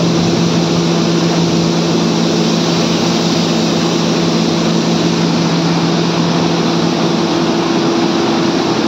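Wheat destoner machine running: a steady motor hum with a constant low tone, over the even rush of wheat grain pouring from its outlet.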